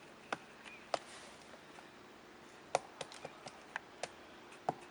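Woodpecker pecking at wood: faint, single sharp taps at irregular spacing, a dozen or so, bunched more closely in the second half.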